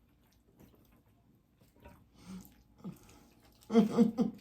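Faint chewing and mouth sounds, then near the end a person laughing in short, even ha-ha pulses, about four a second.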